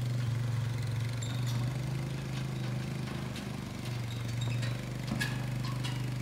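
ATV engine idling steadily, with a few short light metallic clinks over it.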